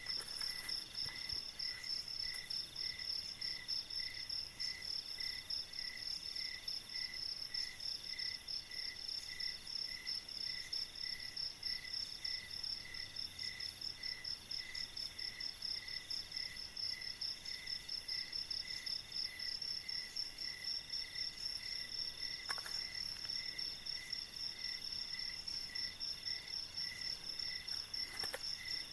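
Night insects calling steadily: a continuous high trill over a lower chirp that repeats regularly, somewhat faster than once a second. A couple of faint knocks from bamboo sticks being handled come near the end.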